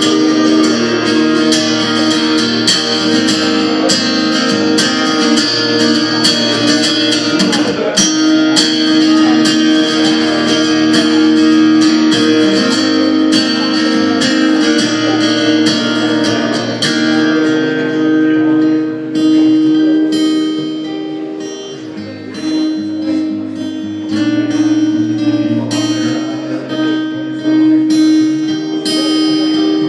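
Acoustic guitar strummed, a steady run of chords with quick pick strokes; the playing softens about twenty seconds in, then builds again.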